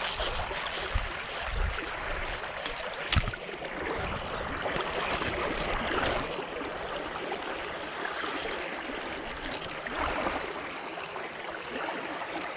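Water of a small stream flowing steadily, with one sharp click about three seconds in.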